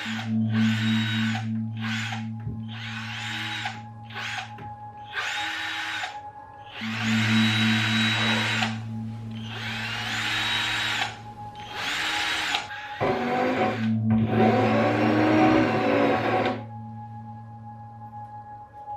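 Power drill run in about nine short bursts, each a second or two long, its whine rising as it spins up and falling as it stops, over a steady low hum.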